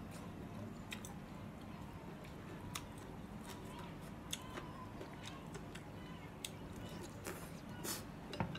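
A person eating noodle soup: slurping noodles and chewing, with scattered light clicks of chopsticks against the ceramic bowl.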